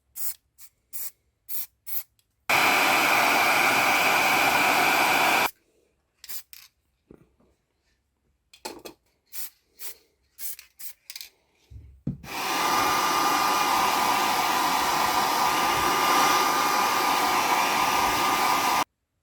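Short strokes of sanding the edges of a small cast resin part by hand, about three a second, alternating with a small electric motor that runs for about three seconds and then for about six and a half seconds with a steady high whine, cutting off sharply near the end.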